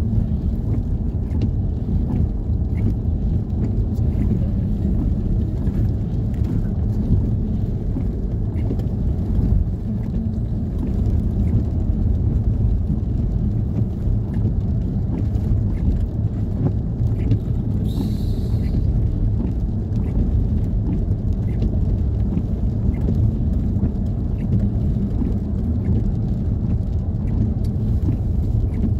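Steady low rumble of a moving vehicle's engine and tyres heard from inside the cabin, with a brief hiss about eighteen seconds in.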